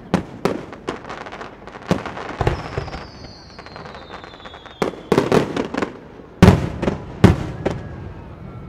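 Aerial fireworks shells bursting in rapid succession, with a thin falling whistle in the middle and the two loudest booms near the end, after which the bursts die away.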